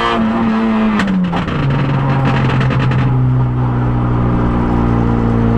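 Peugeot 106 N1600's 1.6-litre four-cylinder engine heard inside the cabin. It runs at high revs, then the revs drop about a second in, with rapid crackling for the next two seconds. It then pulls steadily at lower revs, slowly rising.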